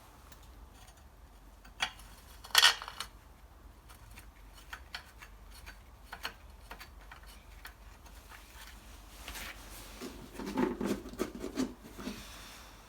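Engine head bolts clinking and rubbing as they are handled and coated with copper-slip anti-seize paste. Scattered small clicks, a sharper clink about two and a half seconds in, and a cluster of clinks near the end.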